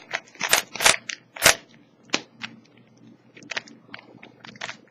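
Plastic Rubik's Cube being turned by hand: quick, irregular clicks and clacks as its layers are twisted, a few louder ones in the first two seconds and lighter ones after.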